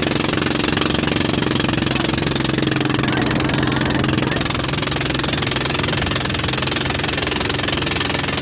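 Small outrigger fishing boat's engine running steadily while the boat is underway, a constant loud drone, with water rushing and splashing along the hull.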